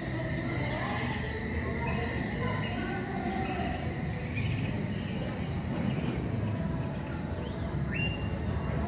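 Crickets trilling steadily in one unbroken high band, over a low background murmur. A short high note sounds near the end.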